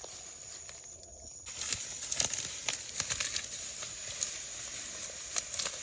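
Dry brush and twigs rustling and crackling as someone pushes through thick vegetation, louder and busier from about a second and a half in, over a steady high chirring of night insects.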